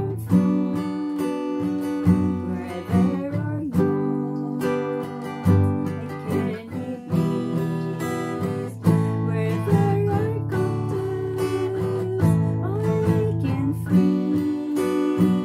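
A woman singing a song to strummed acoustic guitar, the chords strummed in a steady rhythm throughout.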